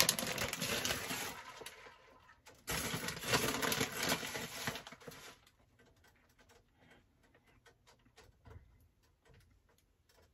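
Plastic bag of shredded cheese crinkling and rustling as cheese is pulled out and scattered onto a tortilla in a pan. It comes in two spells over the first five seconds, then there is near quiet with a few faint light ticks.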